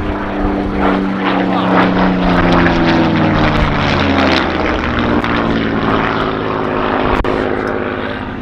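Supermarine Spitfire's piston engine and propeller running hard as the fighter flies past, the engine note falling in pitch as it goes by, between about one and four seconds in.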